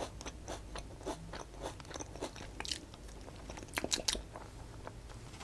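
Close-miked mouth sounds of chewing a sushi-style vegetable popiah roll: soft, slightly crispy crunches and small wet clicks, with a few louder crunches about four seconds in.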